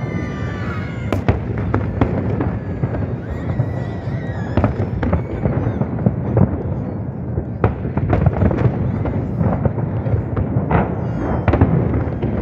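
Large aerial fireworks shells bursting in a continuous barrage: many sharp cracks and bangs over a steady low rumble, with a few high falling whistles in the first second.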